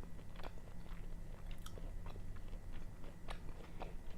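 A person chewing raw tuna sashimi close to the microphone: soft, wet mouth clicks and smacks at an irregular pace.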